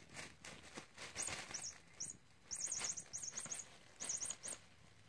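Plastic bubble wrap crinkling and rustling as a cat paws and noses at it, with clusters of short high squeaks in quick runs from about a second in.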